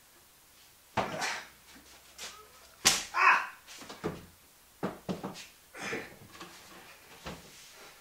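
Knocks and scrapes of a heavy solid-surface countertop with a sink bowl attached being tipped and set down onto base cabinets, several separate bumps with the loudest about three seconds in.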